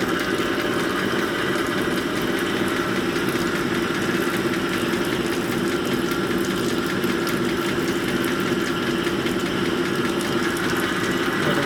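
Precision hone running steadily, its mandrel spinning and honing a piston's wrist-pin bore.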